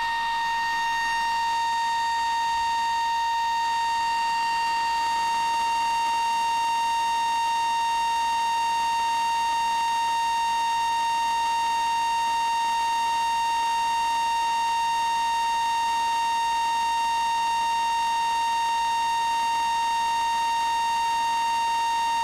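Steady high test tone with overtones from a Westinghouse W516M valve radio's loudspeaker, turned up loud, holding one pitch throughout. It is the signal generator's modulation tone coming through the set while it is fed a 455 kHz signal for IF alignment.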